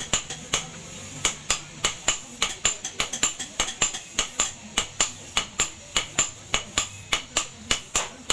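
Hand hammer striking a red-hot steel cleaver blade on a post anvil: hot forging, with an even rhythm of about three to four sharp, ringing metal blows a second.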